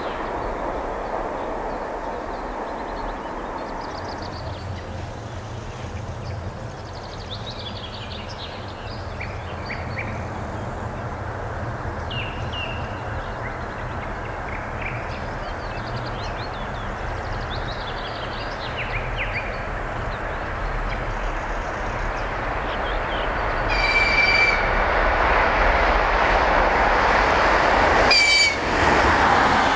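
An electric locomotive hauling a passenger train approaches and rolls past, its wheel and rail rumble building steadily. Near the end the locomotive gives two high horn blasts, the second shorter. Birds chirp in the background while the train is still distant.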